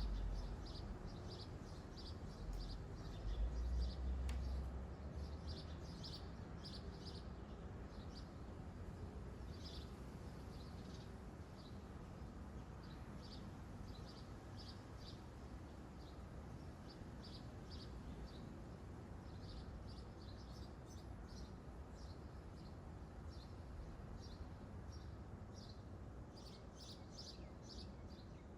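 Small birds chirping in short, high, repeated notes, often several in quick runs, over a steady low background rumble that swells briefly a few seconds in.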